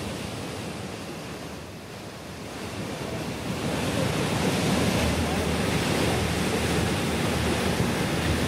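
Waterfall cascading down rock slabs into the water below, a steady rush that grows louder about three and a half seconds in.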